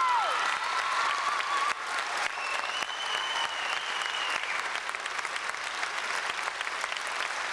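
Audience applauding, a dense steady clatter of many hands clapping that drops suddenly in level about two seconds in. A high steady tone sounds above it for about two seconds near the middle.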